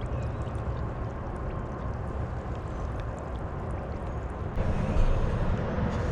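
Water moving and lapping around someone wading waist-deep in a pond: a steady low rumble with a louder surge a little past four and a half seconds in, and a few faint ticks.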